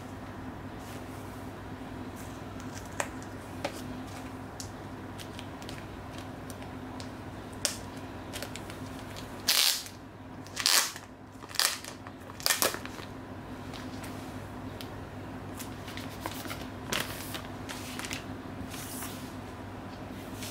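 Gloved hands handling a plastic-wrapped Blu-ray case, with small clicks and rustles. In the middle come a few loud crinkling bursts as the plastic shrink wrap is pulled off. A steady low hum sits underneath.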